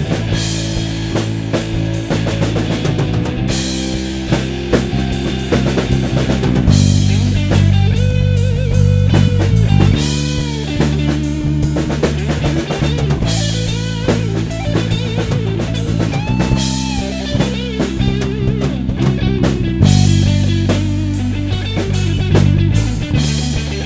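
Rock band playing live: drum kit, bass and guitar, with long held notes that bend in pitch over the rhythm.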